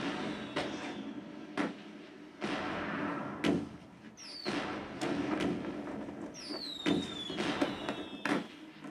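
Fireworks sound effects from a Disney Blu-ray intro, played through a Philips HTS3106 5.1 home theater's speakers. A series of sharp bangs and crackles, with falling whistles about four seconds in and again near seven seconds.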